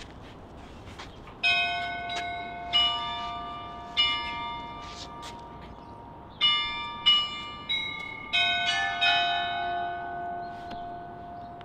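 Bells struck one after another, about nine strikes of differing pitch at uneven intervals with a pause in the middle, each note ringing on and fading, the last few overlapping.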